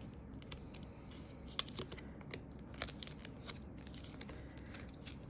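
Stiff photo cards being flipped through by hand: a scatter of light, irregular clicks and ticks as the card edges slip past one another.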